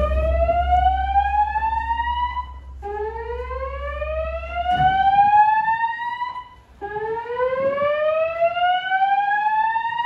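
Fire alarm slow-whoop evacuation tone from System Sensor speaker-strobes on a voice evacuation system. A loud tone rises in pitch over about four seconds, breaks off and starts low again, repeating.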